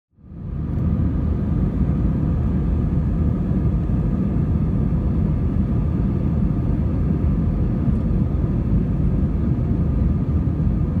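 Steady low rumble of a jet airliner in flight, heard inside the cabin, with a faint steady engine whine above it; it fades in over the first second.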